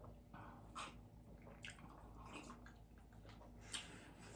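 Faint wet mouth sounds of someone chewing food, with a few soft smacks and clicks.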